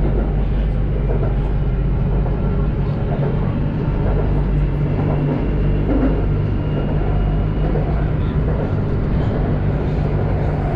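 Inside a BTS Skytrain carriage under way: a steady hum of the traction motors with wheel and rail noise.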